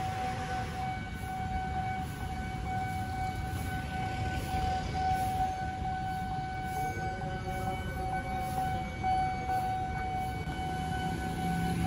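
Street traffic rumbling, with a steady high-pitched tone held at one unchanging pitch throughout. Near the end a lower engine note rises out of the traffic.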